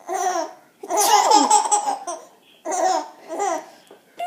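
A baby laughing in high-pitched bouts: a short laugh, a longer run of giggles, then two short laughs near the end.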